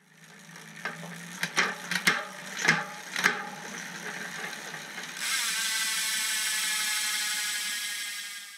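Several sharp, irregular mechanical clicks over the first few seconds, then a steady hiss from about five seconds in that fades away near the end.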